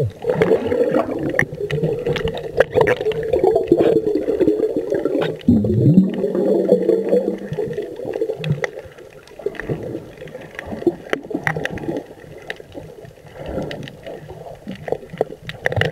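Muffled underwater sound picked up by a submerged camera while people snorkel: water moving and bubbling around the housing, with scattered clicks and a wavering muffled tone that is louder in the first half and fades after about eight seconds.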